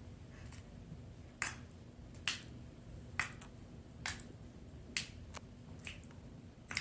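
Hands peeling off honey-coated skin during a pulling massage, the sticky honey letting go with a sharp smacking snap about once a second.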